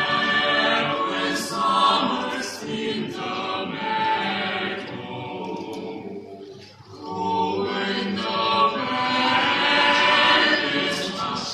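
Seven-voice mixed a cappella ensemble, men and women, singing a slow song in harmony without accompaniment. The chord breaks off briefly for a breath about two-thirds of the way through, then swells back in.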